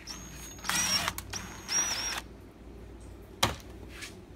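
Cordless drill running in two short bursts with a high motor whine, backing out screws from the air handler cover, then a single knock about three and a half seconds in.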